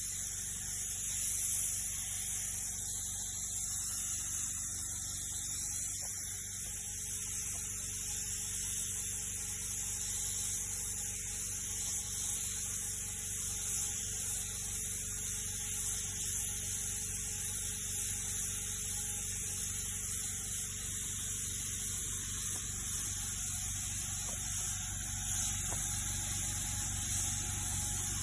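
Steady electrical hum with a constant high hiss, unchanging throughout.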